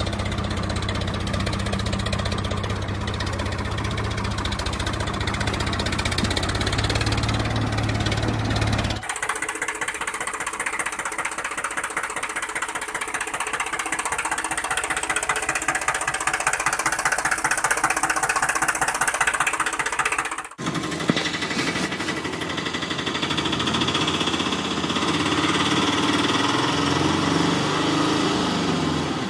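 Tractor engine running, in three sections split by two abrupt cuts: a steady low hum first, then a faster rattling knock, then a steady run again.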